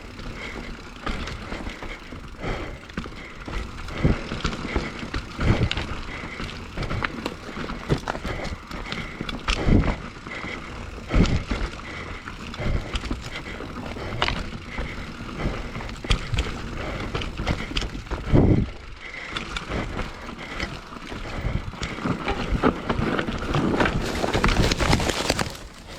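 Hardtail mountain bike ridden over a rough dirt trail: tyre noise with repeated knocks and rattles as the bike hits bumps and rocks. It gets louder and busier in the last few seconds.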